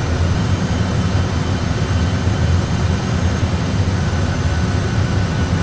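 Steady low rumble of an Airbus A320 flight deck during an autopilot ILS approach, with a few faint steady higher tones above it.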